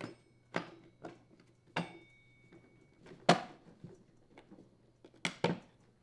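Plastic engine housing halves of a Husqvarna string trimmer being pressed together by hand: a series of irregular clicks and knocks, about eight in all, the loudest about three seconds in, one of them followed by a short ringing tone.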